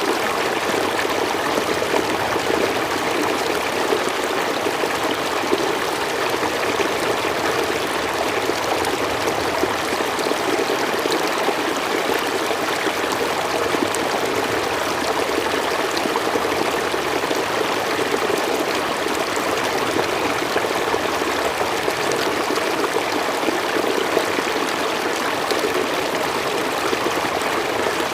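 River water flowing and rushing over rocks, a steady, even burble.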